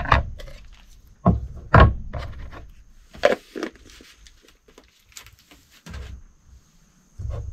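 Metal camping gear handled and set down on a wooden tabletop: a series of irregular knocks and thumps, among them a small gas canister being placed on the table.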